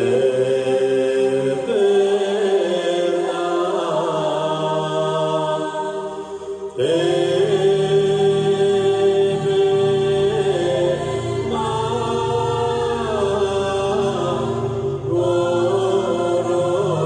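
Mixed choir singing a cappella in Bulgarian folk style: long held chords over a steady low drone, with fresh phrases entering about seven and fifteen seconds in.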